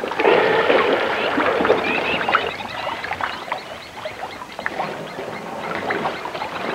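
A crowded herd of African elephants jostling at the water: water splashing and sloshing, with scattered knocks and a few short high squeaks, busiest in the first couple of seconds.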